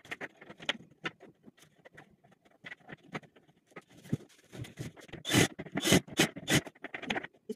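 Clicks, scrapes and knocks of a wardrobe door and its hinge hardware being handled while the door is fitted, with a run of louder knocks about five seconds in lasting a second or so.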